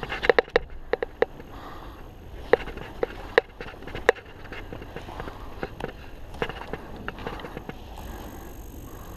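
Footsteps and rustling movement with scattered sharp clicks or knocks. There is a quick cluster of clicks near the start, then single ones about once a second.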